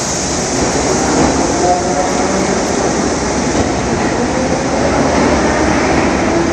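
R42 subway train pulling away from the platform and down the track into the tunnel: steady, loud running noise of the train on the rails.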